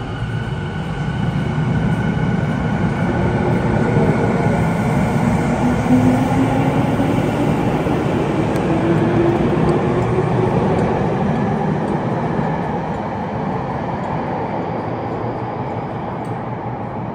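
Electric commuter train departing a platform. Its motor whine rises in pitch as it accelerates, together with the rumble of the wheels, and it grows louder over the first few seconds, then fades as the last cars pass.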